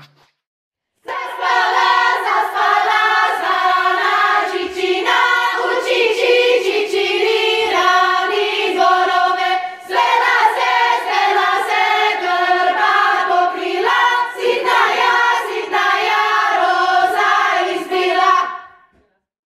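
Choir of women's voices singing together in harmony. It starts about a second in, breaks briefly about halfway and stops shortly before the end.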